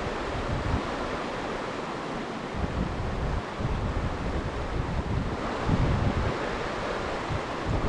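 Mountain stream water rushing steadily over rocks, with wind buffeting the microphone in irregular low gusts.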